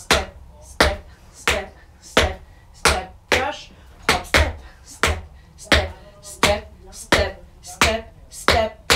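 Tap shoes' metal taps striking a hard floor, one sharp click at a time in an even, slow rhythm, about three taps every two seconds: the hop and single steps of a beginner's tap drill.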